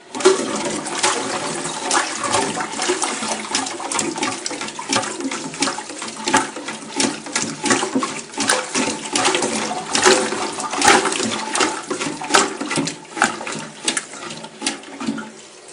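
Armitage Shanks Sandringham toilet flushing: water rushes into the bowl all at once, with many sharp splashes, and tails off near the end.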